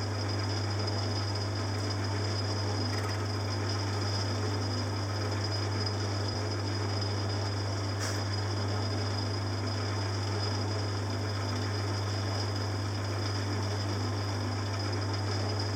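Small metal lathe running steadily with a strong low motor hum while a 45-degree chamfer bit turns down the end of a brass big-end bearing held in a collet chuck.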